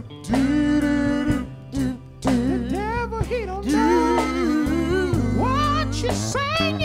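Live gospel band playing, with wordless vocal moaning that bends and glides in pitch over sustained keyboard, bass guitar and drums.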